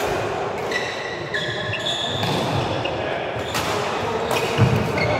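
Badminton rally in a reverberant sports hall: a few sharp smacks of racket strings on the shuttlecock, with short squeaks of court shoes on the floor. A heavy footstep thump near the end is the loudest sound.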